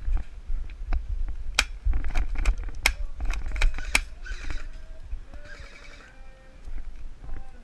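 Heavy rumble of wind and handling on a body-worn camera while an airsoft player moves, with a run of sharp cracks and clacks, irregularly spaced, from about a second and a half in to about four seconds. Brief distant shouts follow as it quietens.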